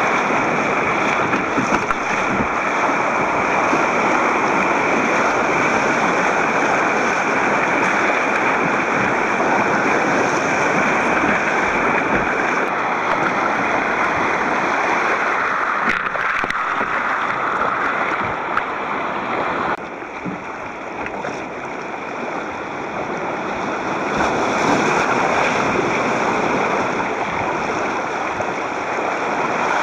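Choppy sea water rushing and splashing against a kayak's bow, with surf breaking on rocks, heard through a camcorder's waterproof housing. The rush drops suddenly about twenty seconds in and builds again a few seconds later.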